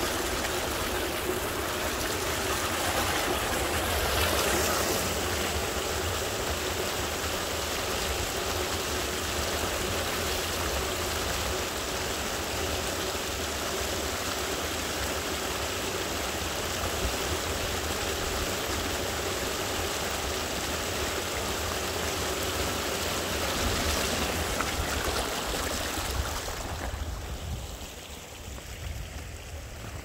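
Mountain stream running over rocks, a steady rush of water that turns quieter and softer near the end.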